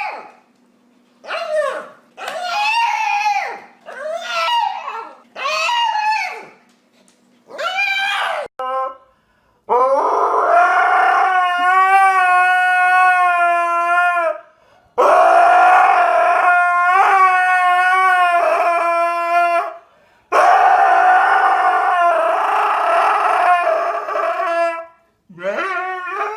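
A dog howling: about six short howls of about a second each, each rising and falling in pitch, then three long, steady howls of about five seconds each.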